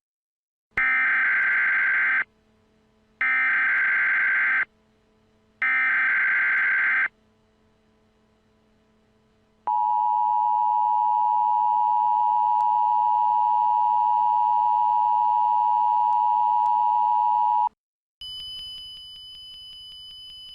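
Emergency Alert System tones. Three bursts of SAME digital header data sound first, each a buzzy warble about a second and a half long, separated by short gaps. Then the two-tone EAS attention signal holds steady for about eight seconds before cutting off, the alert that precedes a tornado warning message. A fainter steady hum with thin high tones follows near the end.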